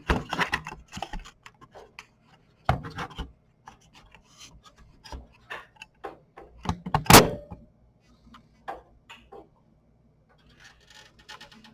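Graphics card being handled and pushed into its slot and the case's rear bracket: scattered light clicks and knocks of hard plastic and metal, with one louder knock about seven seconds in.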